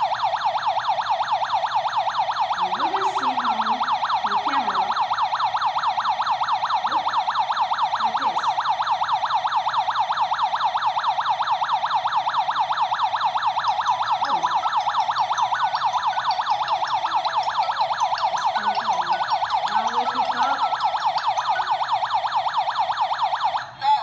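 Alarm panel's built-in electronic siren sounding a loud, fast, steady warble, set off by the door sensor tripping while the system is armed. It cuts off abruptly near the end.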